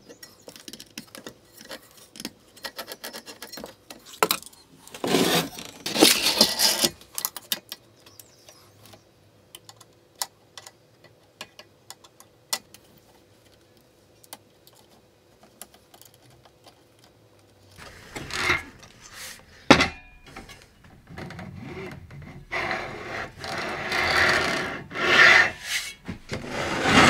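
Hands assembling a 3D printer kit's frame and parts: scattered sharp clicks and taps of small components and fasteners, with bursts of scraping and rubbing about five seconds in and again through the last third.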